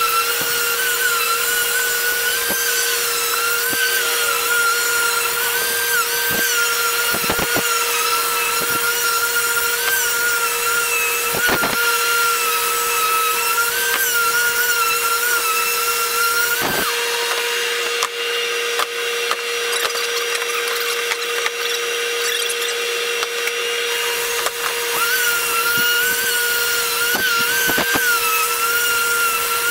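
Electric random orbital sander sanding the face of a reclaimed barn-wood beam corbel, a steady motor whine that wavers in pitch as the pad is pressed and moved over the wood. There are a few sharp knocks, and the tone changes for several seconds in the middle.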